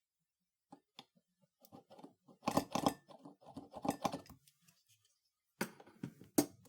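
Irregular light clicks and short scraping, rattling bursts, busiest about two and a half to four seconds in and again near the end, like small hard parts being handled.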